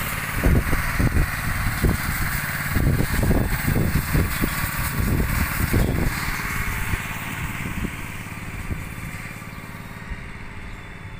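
A motor vehicle's engine running close by, loud for about six seconds and then fading away.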